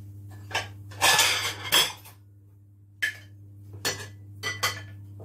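Kitchenware clattering as plates and utensils are handled and set down on a counter: a dense burst of clatter about a second in, then several separate sharp clinks and knocks. A steady low hum runs underneath.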